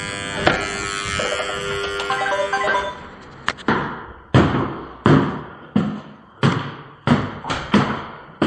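A doorbell chime of several notes rings for about three seconds. Then a run of heavy footsteps thuds at a walking pace, about three steps every two seconds.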